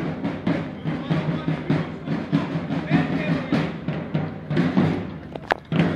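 Parade marching music with a quick, even drumbeat over sustained band tones.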